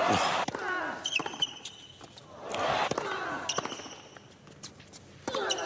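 Tennis rally on a hard court: sharp racket strikes on the ball, rubber-soled shoes squeaking on the acrylic court surface, and a player's loud grunts on his shots near the start and about halfway through.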